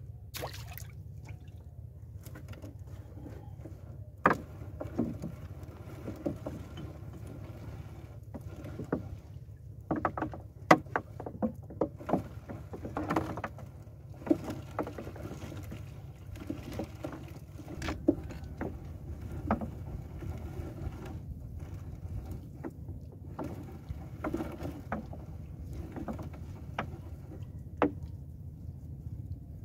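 Water sloshing against the hull of a small wooden outrigger boat, with irregular knocks and light splashes as a fishing net is handled over the bow, over a steady low rumble. The sharpest knock comes about ten seconds in.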